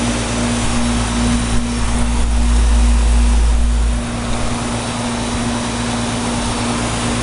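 Outdoor unit of a 2003 Bryant heat pump running in heat mode: an even fan rush with a steady compressor hum, while its coil sits frozen over and the unit has not gone into defrost. A deep rumble under it drops away about four seconds in.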